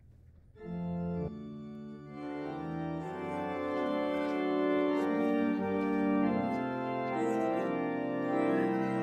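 Church organ playing the introduction to the first hymn. It comes in about half a second in with held chords that change every second or so, and grows louder and fuller from about two seconds in.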